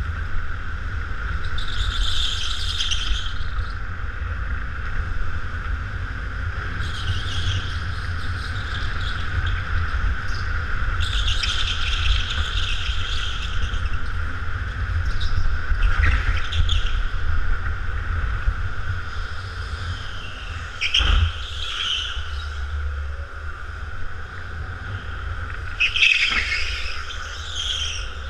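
Go-kart heard from onboard while lapping: a steady high whine with a constant low rumble, and tyres squealing in short bursts through the corners, about six times.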